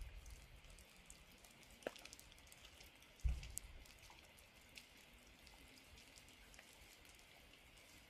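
Gentle rain falling on a shallow stream and wet vegetation: faint pattering with scattered small drips, and a single low thump a little over three seconds in.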